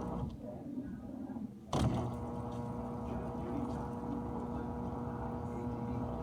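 GE dishwasher running its cycle: the pump's steady hum dies away just after the start. A sharp clunk at about two seconds sets the pump humming steadily again.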